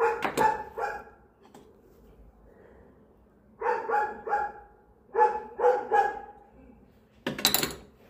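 A dog barking in three quick runs of about three short barks each, with one louder, harsher bark near the end.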